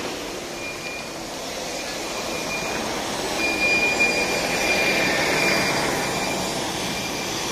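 Scania OmniLink city bus pulling away from a stop and driving close past, its engine and tyres on slushy ice, loudest as it goes by. A thin high whine sounds on and off over the rumble.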